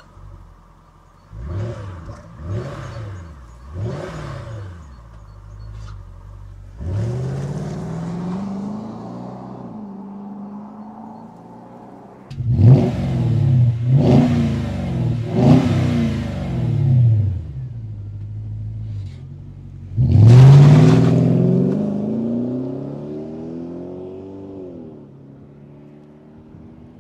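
Jaguar XK8's V8 engine revved in three quick blips and then accelerating away on its standard exhaust. After a cut, the same engine on an Adamesh Stage 1 exhaust gives a louder run of four blips, then a hard pull-away whose pitch falls as it fades into the distance.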